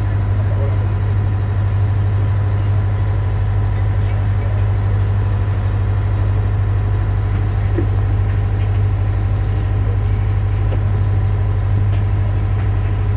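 Boat engine idling: a steady low drone that holds even throughout.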